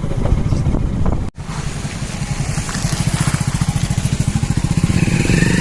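Motorcycle engine running steadily with a rapid, even pulsing, with a brief break about a second in.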